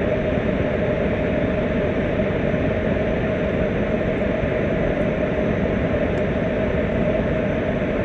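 Flamethrower firing a continuous flame: a steady, even rushing noise of burning gas that holds at the same level throughout.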